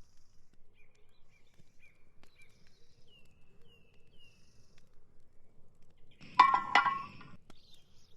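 Faint, short bird calls, a few quick chirps and then three falling notes, over a quiet outdoor background. About six and a half seconds in, a brief loud double sound with a ringing, pitched quality stands out.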